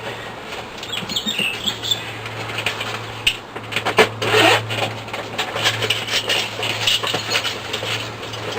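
Irregular clicks, knocks and rustles of an object being handled close to the microphone, over a steady low hum.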